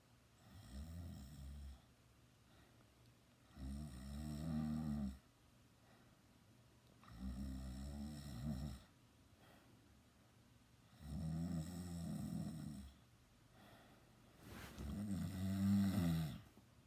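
A sleeping teenager snoring loudly: five rumbling snores at an even pace of about one every three and a half seconds, the last near the end the loudest.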